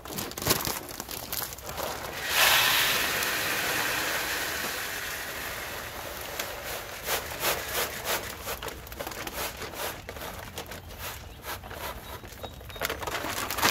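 Chicken feed pellets poured from a 40-pound bag into a feeder hopper: a sudden rush of pellets about two seconds in that slowly tapers off, followed by crinkling of the bag and scattered pellet rattles.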